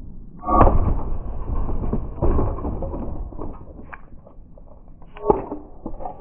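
Metal clanking and rattling as a dishwasher motor is knocked and worked loose from the machine. A loud clatter starts about half a second in and lasts about two seconds, then smaller rattles follow, with one sharp knock near the end.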